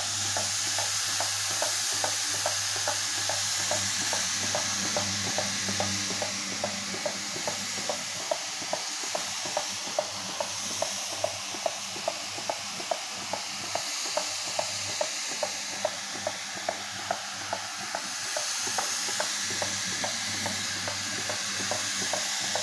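Single-disc rotary floor scrubber running, its brush scrubbing wet, soapy concrete paving blocks: a steady motor hum under a wet scrubbing noise, with a regular tick about two to three times a second.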